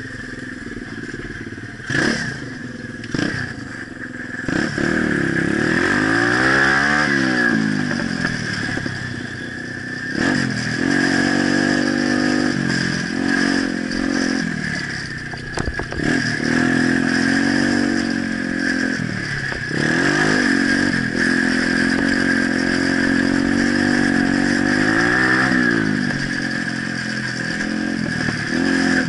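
Pit bike engine running under way, its pitch rising and falling several times as the rider opens and closes the throttle. A couple of sharp knocks about two and three seconds in.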